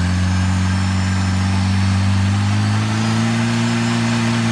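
Jeep YJ Wrangler's 2.5-litre four-cylinder engine running at low revs as the Jeep crawls through mud, its pitch climbing a little about halfway through.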